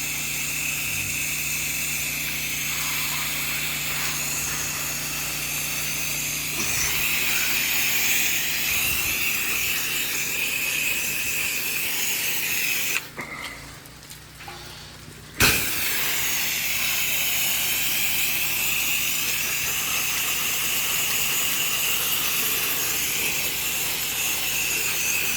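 Soft-wash spray rig running and spraying chlorine solution onto house siding, a steady hiss over a low pump hum. It cuts out for about two seconds just past halfway and starts again with a sharp burst.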